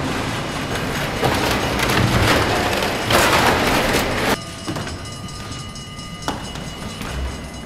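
Loud, steady rushing noise that cuts off abruptly a little over four seconds in, leaving a quieter hum with a few faint knocks.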